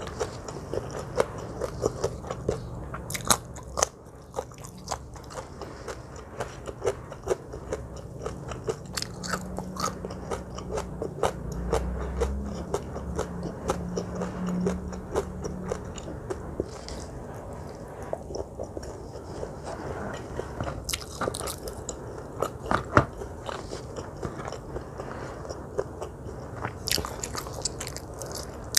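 Close-miked chewing and biting of crunchy food, with many irregular crisp crunches.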